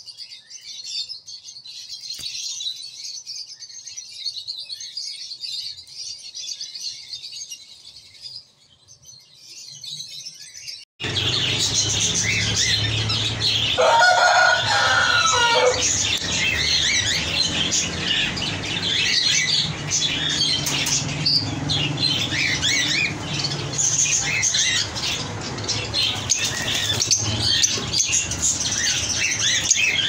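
Lovebirds chirping and chattering, faint and high at first; after a sudden cut about 11 seconds in, caged lovebirds chatter much louder, with wings flapping and one stronger, lower call about halfway through.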